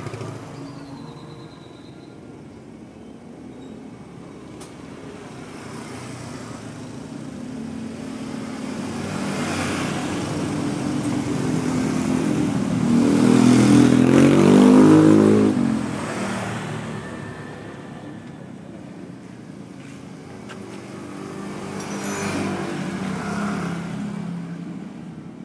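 Vehicle engines passing by. The engine noise builds to a loud peak about two-thirds of the way through, its pitch dropping as it goes by, then fades, with a smaller swell near the end.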